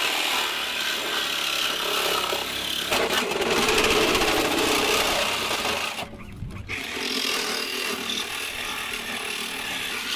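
DeWalt 36-volt cordless reciprocating saw cutting through a car's sheet-metal body. It stops for under a second about six seconds in, then cuts again.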